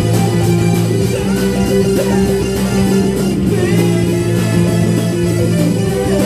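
A live metal / post-hardcore band playing loudly: electric guitars and bass holding long sustained notes and chords.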